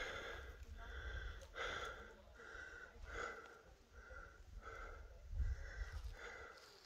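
A person breathing hard in quick, even breaths, about two a second, with a low rumble on the microphone about five seconds in.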